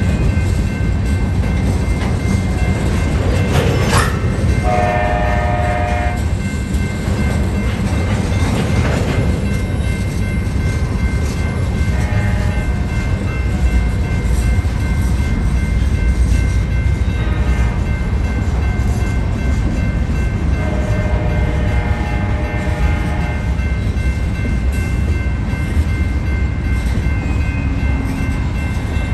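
Freight train rolling past with a steady heavy rumble, and a diesel locomotive's air horn sounding: a short blast about five seconds in and a longer one about three-quarters of the way through.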